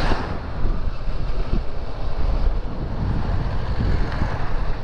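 Wind buffeting a motorcycle-mounted microphone while riding at town speed, a loud rough rumble with the bike's engine running underneath.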